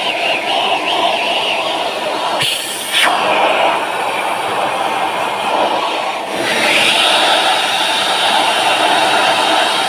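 Vacuum cleaner running steadily with a loud whooshing rush of air. Its sound changes briefly about a quarter of the way in, then turns brighter and hissier just past halfway, as the suction nozzle is moved over different surfaces.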